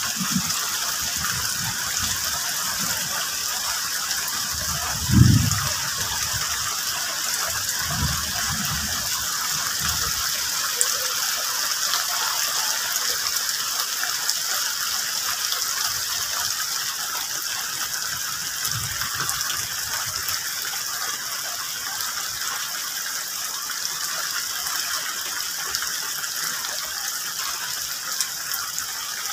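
Steady heavy rain falling on tree and banana leaves, an even hiss without pauses, with a few low thumps in the first ten seconds.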